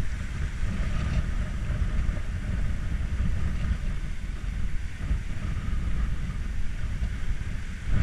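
Wind buffeting the action camera's microphone in a steady, gusty low rumble, over a fainter hiss of choppy sea washing against shoreline rocks.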